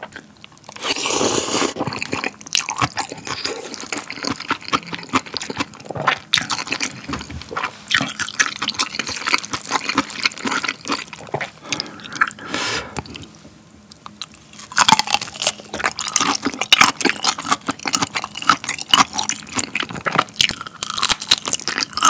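Close-miked eating sounds: a long slurp of spicy cold noodles about half a second in, then wet, clicky chewing. In the second half a raw black tiger shrimp is bitten and chewed, with dense wet clicks.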